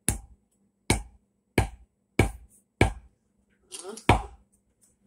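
Hatchet blade chopping through a lock of hair into the end grain of a wooden log: six sharp strikes, about two-thirds of a second apart, with a longer pause before the last and loudest one.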